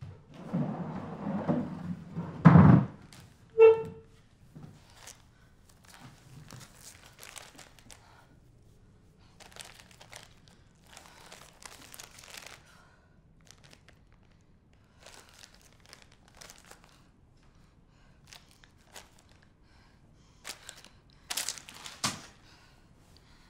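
Rustling and a heavy thump at the start, followed a second later by a short squeak. After that come faint scattered crinkles of a paper tissue being handled, with a louder crinkling burst near the end.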